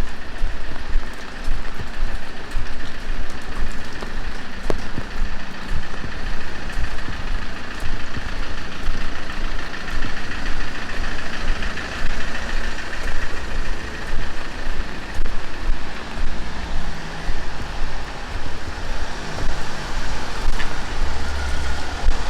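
Heavy rain falling steadily on a street, with a motor vehicle passing on the wet road, loudest around the middle.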